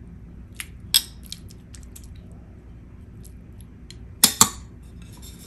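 Stainless steel serving tongs clinking against a glass baking dish and a ceramic plate while baked onions are dished out: a sharp clink about a second in and two quick ones just past four seconds, with light ticks and scrapes between.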